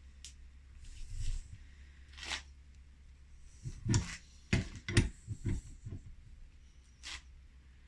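A wrench and a threaded pipe fitting being worked in a vise: a series of short metallic clicks and knocks, clustered about four to five and a half seconds in, over a low steady hum.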